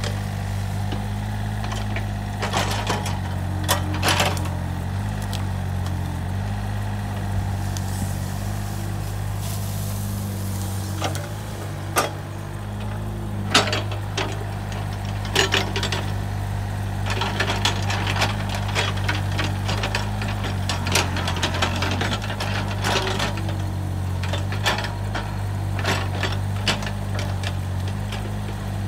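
Takeuchi TB135 mini excavator's diesel engine running steadily under working load, with scattered sharp knocks and clanks as the bucket digs into brush and stump debris. The knocks come thicker in the second half.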